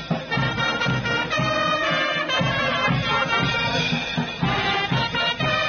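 Military wind band of clarinets and brass playing a tune together, with a bass drum keeping a steady beat.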